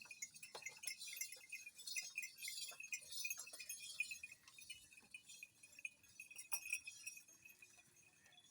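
Many small, high-pitched animal calls overlapping in a rapid chirping chorus, fading somewhat near the end.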